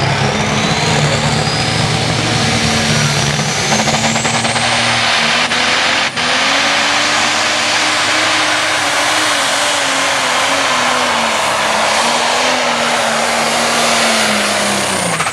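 Pro Stock pulling tractor's turbocharged diesel engine at full power, pulling a weight-transfer sled. A high turbo whine climbs over the first five seconds and holds. Near the end the whine and the engine pitch fall away as the tractor comes off the throttle at the end of the pull.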